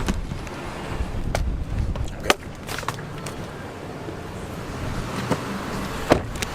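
Steady low rumble inside a vehicle, broken by a handful of sharp clicks and knocks, the loudest about six seconds in.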